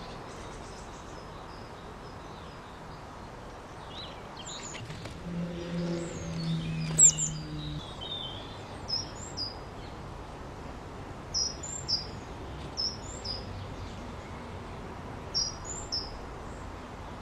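Small garden birds calling with short, high chirps, some in quick pairs and runs, over steady background noise. A low steady hum is heard for a couple of seconds around the middle.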